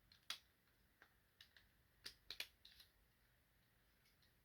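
Faint, scattered clicks of hard plastic toy parts being handled and pressed together as an upgrade-kit filler piece is fitted onto a Transformers figure's leg, about eight small clicks over the first three seconds.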